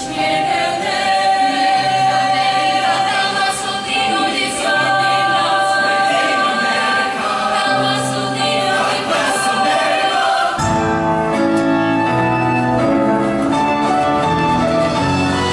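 Show choir singing with instrumental accompaniment, holding long sustained chords; about ten seconds in, the music switches to a busier instrumental passage with a moving bass line.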